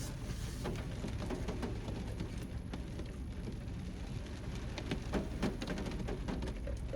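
Rain falling steadily: a constant hiss with many small drops ticking, over a low steady rumble.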